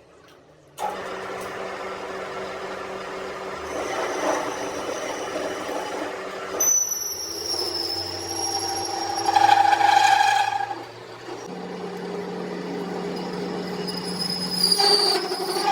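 A workshop machine with an electric motor switches on suddenly and runs with a steady whine and humming tones, its pitch shifting several times as the load changes.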